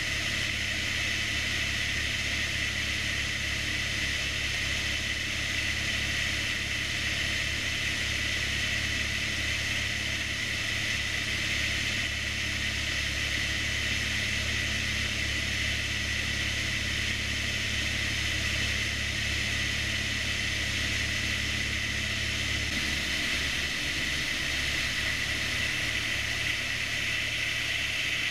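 Airplane engine and propeller droning steadily, heard from inside the cabin. About three-quarters of the way through, the low hum shifts slightly lower, as with a change in engine power.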